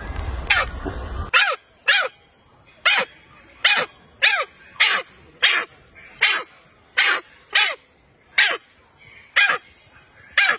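Baby macaque crying: a run of about fifteen short, high cries, each sliding down in pitch, repeated roughly every half second to second.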